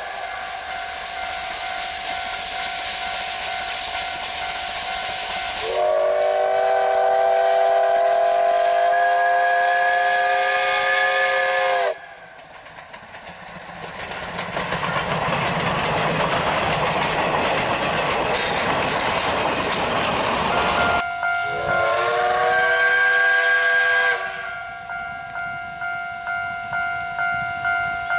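C12 66 steam tank locomotive hissing steam, then sounding a long chord on its steam whistle. Next comes a rush of steam and running noise as it works hard, then a shorter whistle blast. Near the end come evenly spaced exhaust chuffs, about one and a half a second, as it pulls away from a start.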